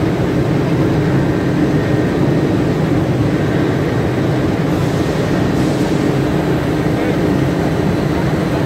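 Two-colour, two-head rotogravure plastic printing machine running steadily, a continuous mechanical drone with a low hum.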